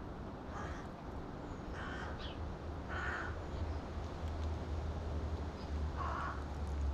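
Carrion crow cawing out of sight, about four short caws spread over several seconds.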